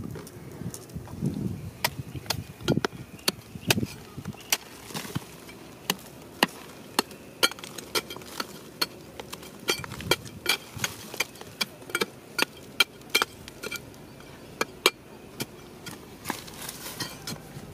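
A long metal digging bar striking and prying into a crumbly rock face: a string of sharp, irregular clinks and knocks, one to three a second, with a few duller thuds in the first few seconds.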